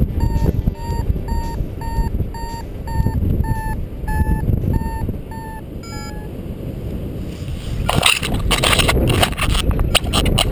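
Paragliding variometer beeping about twice a second at a steady pitch, the sign that the glider is climbing, over steady wind noise. The beeping stops about six seconds in, and near the end loud rustling and knocks take over.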